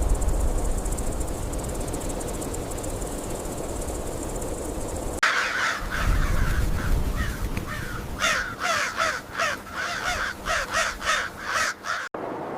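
Steady outdoor hiss with a faint high insect-like band, cut off abruptly about five seconds in by a crow cawing. The caws come in a quick, rapid series, then stop suddenly near the end.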